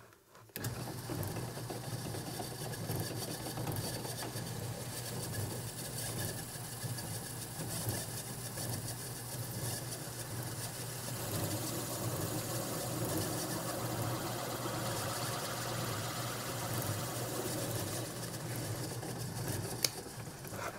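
Power drill running steadily, boring a half-inch hole through stacked curly maple handle blocks. It starts about half a second in and stops just before the end.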